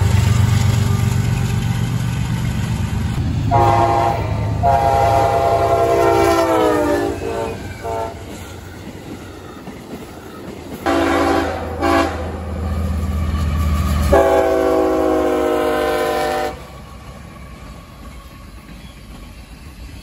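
Diesel freight locomotive horns sounding a multi-note chord in a series of blasts over the rumble of a passing train. A long blast near the start slides down in pitch as the train goes by. Two short blasts and a long blast follow later.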